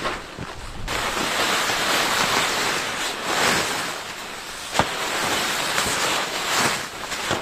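Strong blizzard wind, a rushing hiss that comes in abruptly about a second in and then swells and eases in gusts, with a sharp click about five seconds in.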